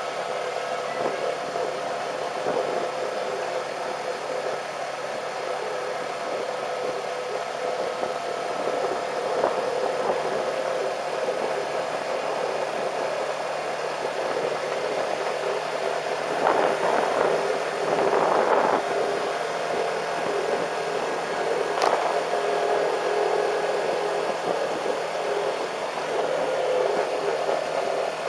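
Motorcycle on the move: a steady rush of wind noise over the microphone with the engine running beneath it. About two-thirds of the way through the noise swells louder for a few seconds, and a short sharp sound follows a few seconds later.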